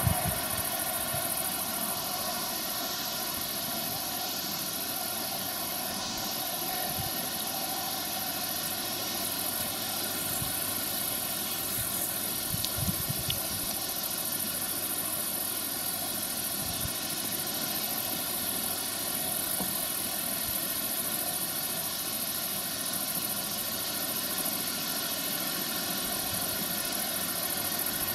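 John Deere combine harvester running steadily while cutting grain: an even engine and threshing drone with a constant high hiss, and a few brief low thumps about halfway through.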